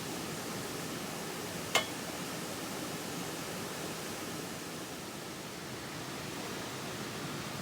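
Steady, even hiss of background noise, with one sharp click a little under two seconds in.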